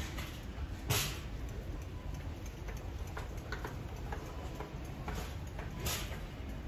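Irregular light ticks and clicks, with two louder knocks about a second in and near the end, over a low steady rumble.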